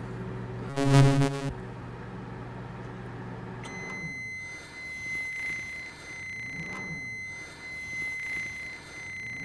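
A microwave oven running with a low electric hum, broken about a second in by a brief, loud, harsh buzz. Near the middle the hum gives way to a steady high-pitched electronic tone that lasts to the end, with a slow pulsing wobble underneath.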